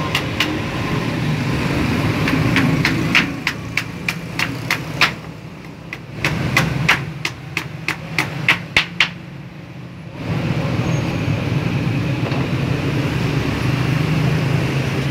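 A claw hammer driving nails into a pallet-wood table frame: about twenty sharp, irregular blows over the first nine seconds, some in quick pairs. After that the hammering stops and a steady engine-like drone is left.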